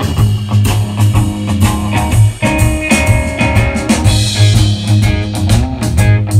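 Rock music with guitar and drum kit, with a heavy bass line and a steady beat, played through a pair of Akai SW-A3 three-way vintage loudspeakers.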